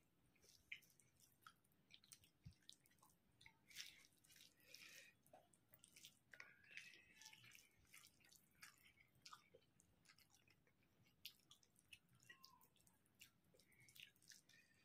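Faint eating sounds: fingers squishing and mixing rice and curry on a plate, and wet chewing, heard as many short, irregular clicks and smacks.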